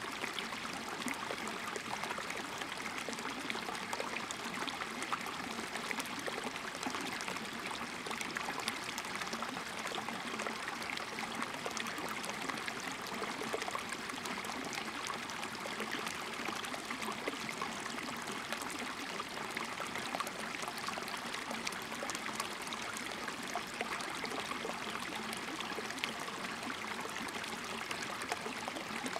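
Shallow rocky mountain stream running over stones and pebbles: a steady trickle of water.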